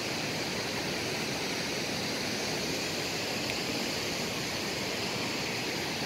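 Waterfall rushing in a steady, even roar of water; it is running strong after several days of rain.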